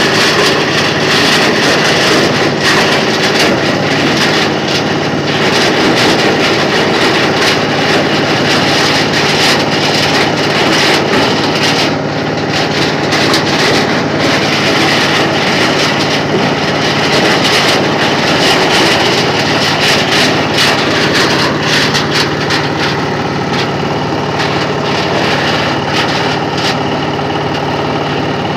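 Areca nut husking machine running loudly and steadily, a constant machine drone under a dense, irregular rattle of clicks and knocks that thins out somewhat in the second half.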